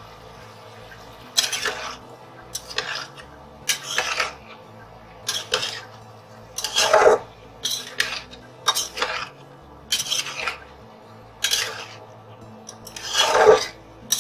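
Spatula scraping and knocking against a stainless steel pan while chunks of cauliflower and potato curry are stirred and turned, in short strokes about once a second.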